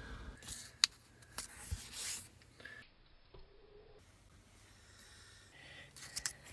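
Faint rustling of paper sticky notes being handled on a tabletop, with a few light clicks and taps near the start and again near the end.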